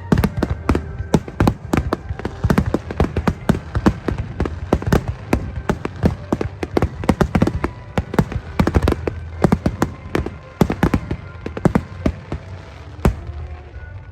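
Aerial fireworks display: a rapid barrage of shell bursts, several loud bangs a second, going on without a break.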